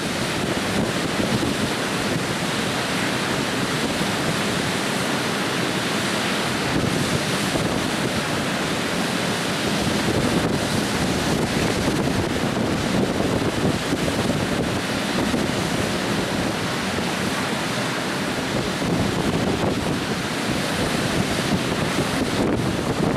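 River water pouring over a low weir and churning in the white water below it: a steady, even rush.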